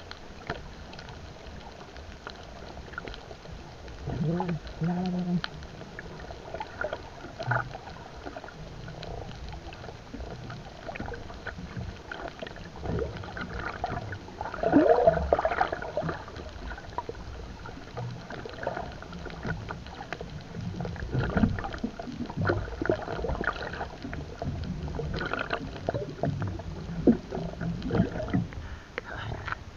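Water gurgling and sloshing, heard muffled from under the surface, with scattered knocks and clicks and a louder stretch about halfway.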